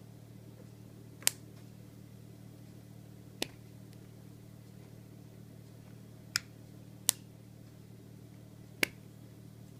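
Five sharp clicks, unevenly spaced, from the steel top cap of a Bell vape tank being twisted open and closed by hand, over a steady low hum.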